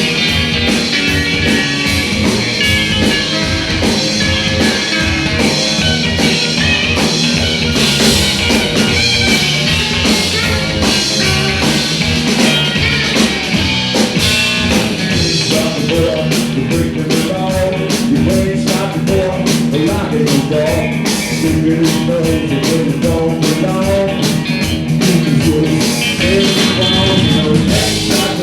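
Live blues-rock band playing an instrumental passage: electric guitar lines over bass and a steady drum beat.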